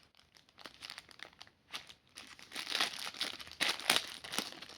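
Packaging crinkling as a small packed accessory is opened and handled, faint at first and then busier and louder about two and a half seconds in.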